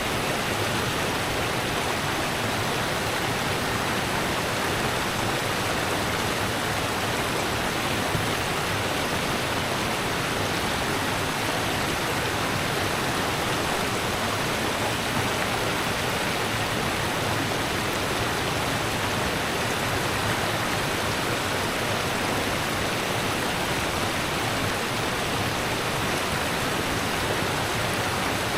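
Rushing river water, a steady, unbroken rush.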